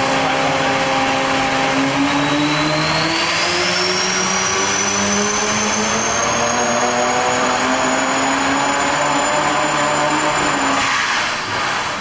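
Four-rotor Mazda rotary engine with a GT60 turbocharger running under load on an engine dyno. The engine note climbs slowly from about two seconds in, while a high turbo whine rises and then holds steady; near the end the engine backs off and the sound drops.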